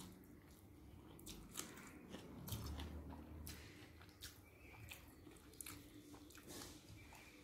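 Faint close-up chewing of crisp-fried bitter gourd and onion, with scattered irregular crunches and small clicks.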